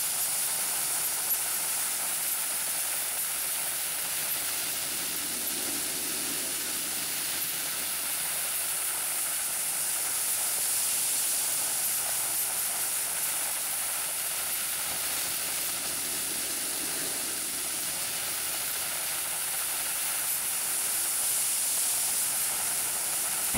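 Soda blaster hissing steadily as its jet of baking-soda media strips old paint off a car's painted sheet-metal panel.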